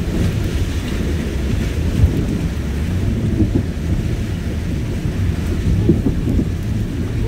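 Y62 Nissan Patrol pushing through a deep river crossing: a heavy, uneven rumble of the engine and water surging around the vehicle, with a couple of knocks about two and six seconds in.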